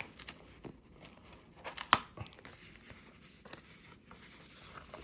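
Paper leaflets and cardboard packaging being handled and rustled, with scattered light crackles and taps and one sharper click about two seconds in.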